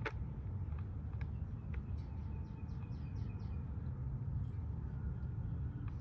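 Backyard birds chirping: scattered short chirps and a quick trill of about eight rapid notes a couple of seconds in, over a low steady rumble.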